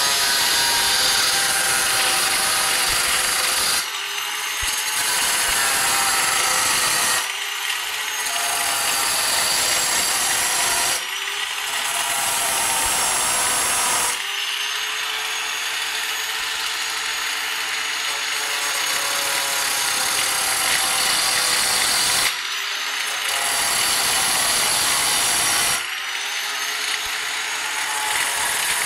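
Electric drill running with its bit working against dry coconut, a continuous grinding noise over the motor's whine. The motor eases off briefly every few seconds and spins back up each time.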